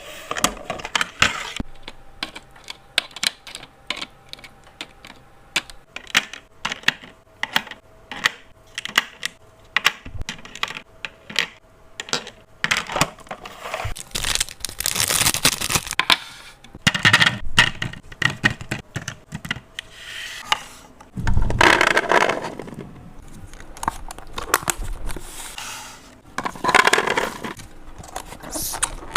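Many quick clicks, taps and light clatter of small hard items being handled and set down, broken by several longer rustling swells of packaging.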